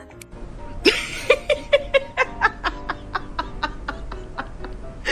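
A person laughing in a run of short, quick ha-ha pulses that start about a second in and fade toward the end.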